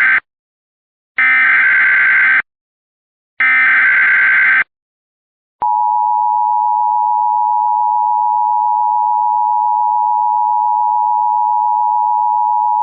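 Emergency Alert System tones. First come the end of one SAME header data burst and two more full bursts, each a harsh digital screech about a second long. About five and a half seconds in, the EAS two-tone attention signal (853 and 960 Hz) starts: a steady, loud dual-tone alarm.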